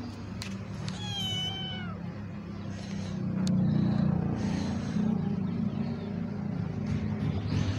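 A kitten meows once, a high wavering call about a second in, over a steady low hum.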